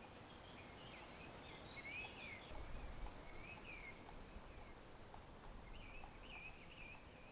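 Faint birdsong: small birds chirping in short, wavering phrases, repeating throughout, over a soft steady hiss.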